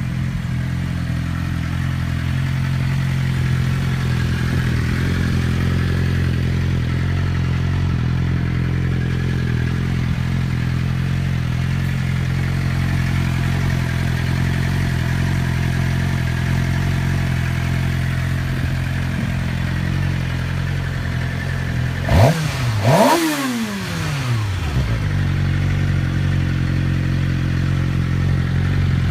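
Motorcycle engine idling steadily, revved twice in quick succession about three quarters of the way through, the pitch jumping up and falling back to idle each time. It runs without the whine or cam chain noise it had before its repair.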